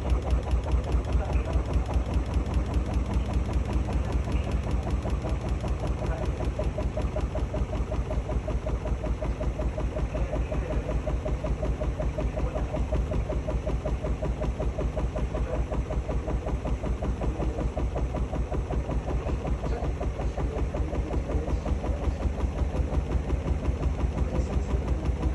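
Hotpoint-Ariston Aqualtis washing machine running, its drum turning with a fast, even rhythmic thumping and a low motor hum.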